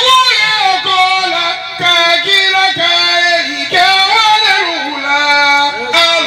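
A man singing a Sufi devotional poem in long held, gliding notes, with short breaths between phrases about every two seconds.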